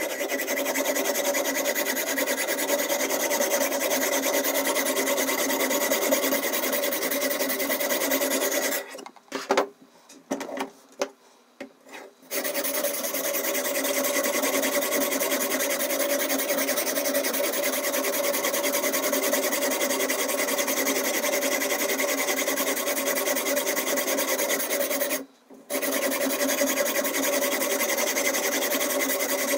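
Diamond whetstone on a Ruixin Pro RX 008 guided sharpener scraping steadily back and forth along a steak knife's steel edge. About a third of the way in it stops for about three seconds, broken by a few short knocks, and it stops again briefly near the end.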